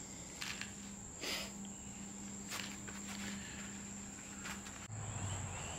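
Faint, steady high-pitched cricket trill, with a few soft clicks.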